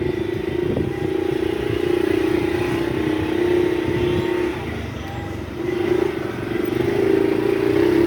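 Motorcycle engine running while riding, easing off about four and a half seconds in and picking up again a second later.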